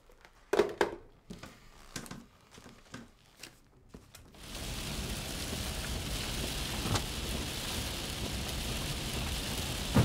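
A few soft knocks and clicks, the loudest about half a second in. About four seconds in, a steady, even hiss of rain falling on a car starts and runs on, with a single dull thump near the middle.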